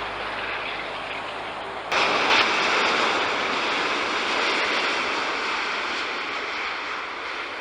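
Airbus A380 on landing approach, its jet engines making a loud rushing noise that jumps up suddenly about two seconds in and then slowly fades.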